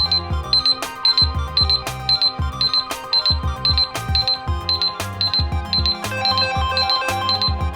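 A smartphone's electronic ringing tune with a steady beat and bass line under a high beep that repeats about twice a second; a higher melody joins about six seconds in.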